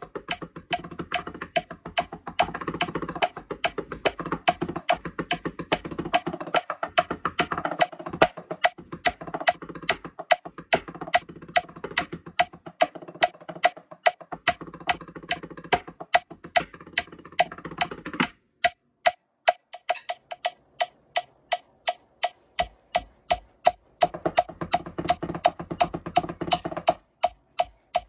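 Marching tenor drum practice pads struck with sticks in fast patterns and rolls, over a steady metronome click. About two-thirds of the way through, the playing stops for several seconds and only the metronome ticks, about two clicks a second, before the playing starts again briefly.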